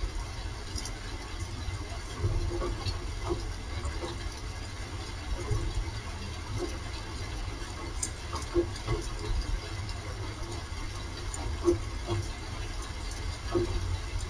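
Rain falling, with scattered drops ticking irregularly and a steady low rumble underneath.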